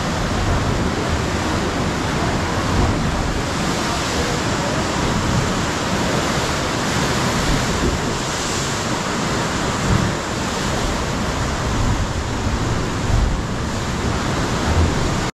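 Steady rush of ocean surf breaking, with wind on the microphone.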